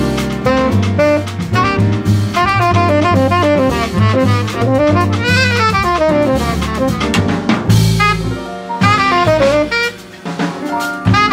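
Jazz quartet playing: saxophone lead in quick runs of notes up and down, over piano, bass and drum kit.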